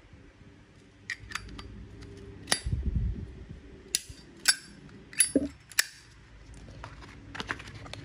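Zippo lighters being handled: a series of about ten sharp metallic clicks and clinks at irregular intervals, with a duller knock about two and a half seconds in.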